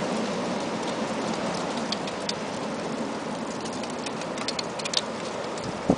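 Strong wind blowing steadily, with dry leaves skittering along a sidewalk in quick, light clicks that grow more frequent in the second half.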